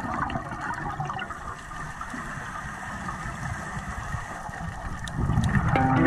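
Underwater sound of scuba regulator exhaust bubbles: an irregular, churning rumble of water with a few faint clicks, swelling about five seconds in.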